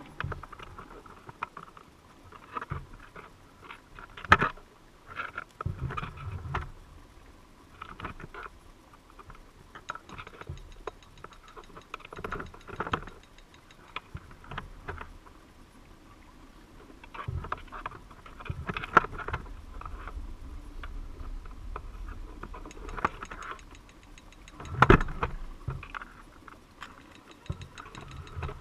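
Irregular underwater clicks, taps and knocks around a submerged crab trap, muffled by the GoPro's waterproof housing, with a few louder knocks scattered among them and a low rumble underneath.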